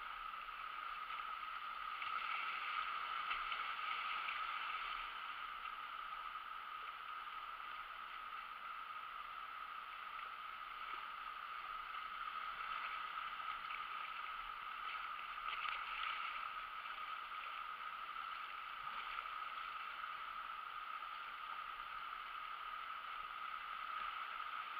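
Steady rush of whitewater rapids on a river running high, at about 1800 cfs.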